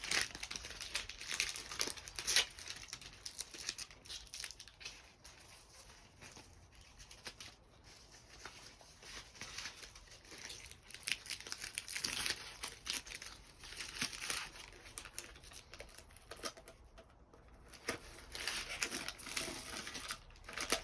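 Foil tape being pulled, torn and crinkled as it is pressed over an exhaust silencer's baffle and packing, in irregular rustling bursts.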